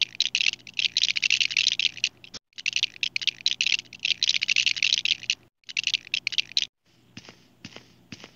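Rapid clatter of plastic Lego bricks clicking and rattling together, the sound of bricks being built up. It comes in three dense bursts that break off suddenly, then a few sparser, quieter clicks near the end.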